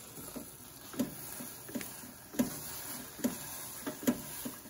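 A spatula tapping and scraping on the flat top of an electric griddle while an egg omelette is rolled over: irregular short clicks, roughly one or two a second.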